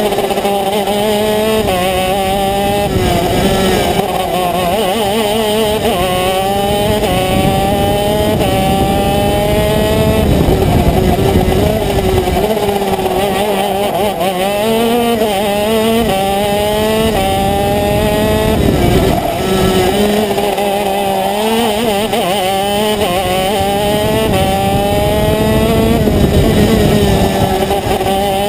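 Racing kart's two-stroke engine, heard from the driver's seat under hard racing, its pitch climbing again and again along the straights and dropping back when the driver lifts for corners.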